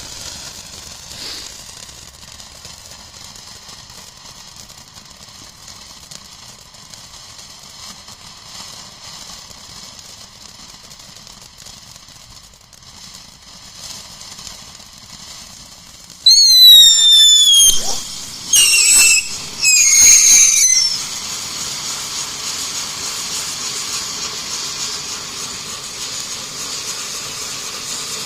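Spinning fountain firework: a faint steady hiss, then about sixteen seconds in three loud whistling bursts that fall in pitch, followed by a louder, steady spraying hiss.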